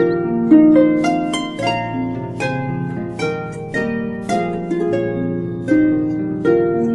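Harp-like plucked strings playing a slow, gentle melody over a sustained low drone, each note ringing out and fading.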